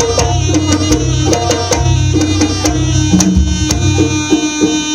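Live Javanese jaranan ensemble music: hand drums, likely kendang, beating quick strokes over a sustained melody line and a steady low bass pulse.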